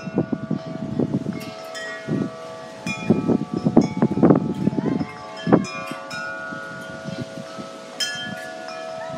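Wind chimes ringing in gusty wind, with overlapping tones that keep sounding as new strikes come in. Wind buffets the microphone in low, irregular gusts.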